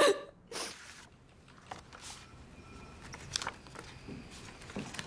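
Faint rustling and light clicks of photographs handled on a desk, over quiet room tone.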